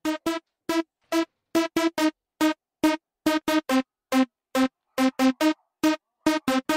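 Background electronic music: a string of short, clipped notes on a couple of close pitches, in a bouncy, syncopated rhythm with brief silences between them and no drums.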